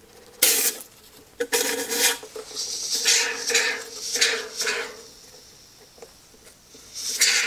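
Can of low-expansion spray foam insulation hissing in short, repeated spurts as foam is squirted through its straw nozzle into a hole in a door.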